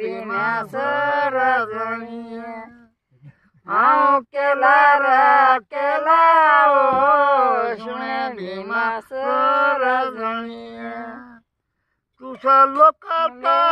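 Unaccompanied singing of a Pahari folk song, in long drawn-out lines with short breaks about three seconds in and again near the end.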